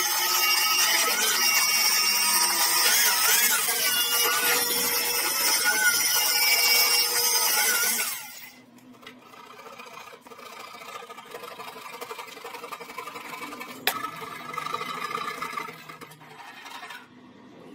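Festool plunge-cut track saw running along its guide rail and cutting through a walnut slab, a loud, steady cutting noise whose pitch wavers under load. It stops about eight seconds in, leaving quieter low sounds with a single sharp click.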